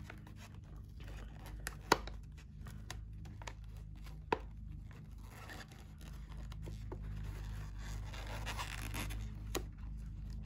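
Scissors cutting slowly along the edge of glossy photo paper, with scattered sharp clicks and paper rustling.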